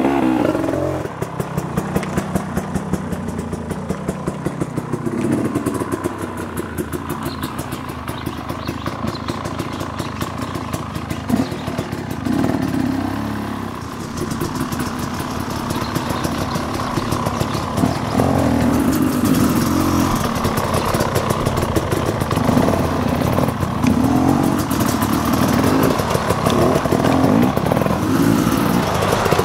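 KTM 300 XC-W two-stroke single-cylinder dirt bike engine being ridden, revving up and dropping back again and again.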